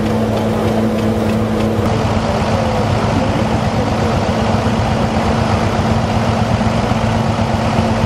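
Farm machinery engine running steadily with a constant drone. The background noise changes about two seconds in, but the drone carries on.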